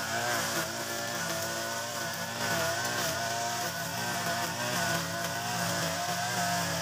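Mitsubishi backpack brush cutter's engine running steadily at cutting speed, its spinning nylon trimmer line cutting grass; the engine pitch dips and recovers slightly as the line swings through the grass.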